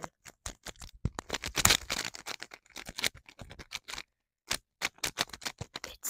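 GAN 13 MagLev 3x3 speed cube being turned fast: rapid, irregular clicking of its layers, with a short pause about four seconds in.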